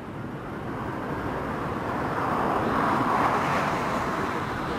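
Distant jet noise from a Boeing 787-9's Rolls-Royce Trent 1000 engines on final approach, a steady rushing sound that grows louder to about three seconds in, then eases slightly.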